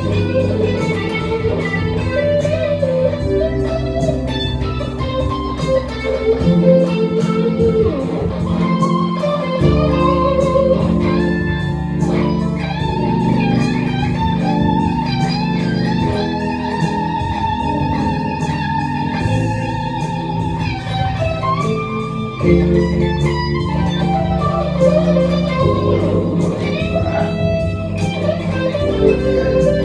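Electric guitar, a Telecaster-style solid-body, playing lead lines over a low accompaniment that changes with the chords. There are long held notes with vibrato in the middle stretch.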